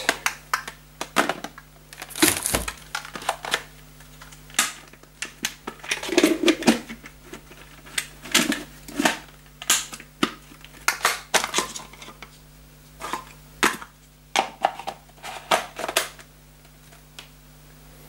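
Hard plastic parts of a cordless handheld vacuum cleaner being handled, knocked and clicked together, with some rustling of plastic packaging. Under the irregular clicks there is a faint steady hum.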